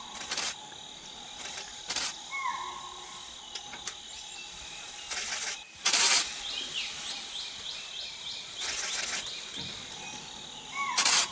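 Wild birds calling over a steady insect drone: a repeated swooping whistle and, about two-thirds of the way through, a rapid run of short chirps. Several brief loud rushes of noise break in, the loudest about halfway and near the end.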